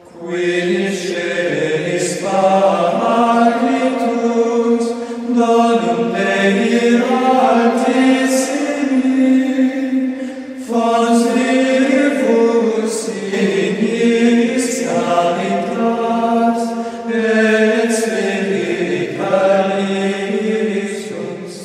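Choir chanting in long held, layered notes that change every couple of seconds, fading out near the end.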